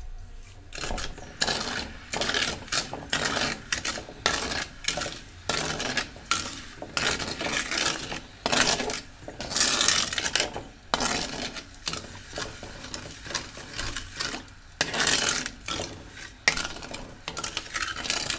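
Steel ladle scraping and stirring around an aluminium kadai of sugar and water in repeated strokes, about one a second, grating through the undissolved sugar grains as it mixes the syrup.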